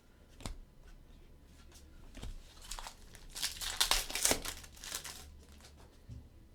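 A foil trading-card pack wrapper crinkling and being torn open, with a dense flurry of crackling about three to five seconds in and a few lighter rustles around it.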